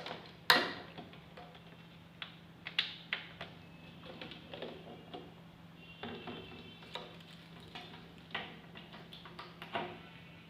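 Irregular small clicks and knocks of handling the wall clock camera and plugging in its USB power cable, over a faint steady low hum.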